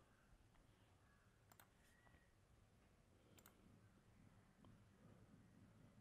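Near silence with two faint computer mouse clicks, one about a second and a half in and another about three and a half seconds in.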